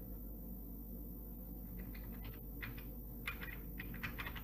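Faint computer keyboard keystrokes: clusters of light clicks from about two seconds in, as a short name is typed, over a low steady hum.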